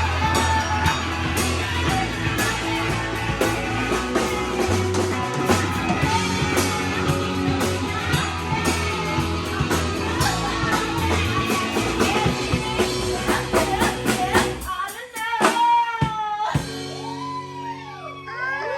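Rock music with singing, guitar and drums, cutting off about fifteen seconds in. After that come voices sliding up and down in pitch.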